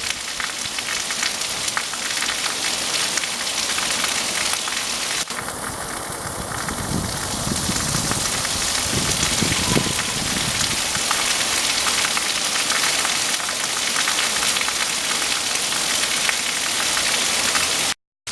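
Heavy rain falling steadily: a dense, even hiss of countless drops striking the ground.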